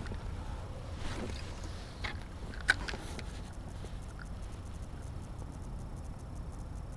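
Low, steady rumble of wind and water around a float tube on a pond, with a few light handling clicks and one sharp click a little under three seconds in.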